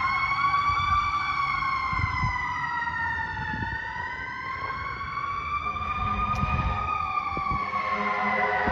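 Fire engine siren sounding a slow wail, its pitch rising and falling in long sweeps, over the truck's engine rumble. A low steady horn tone joins briefly near the end.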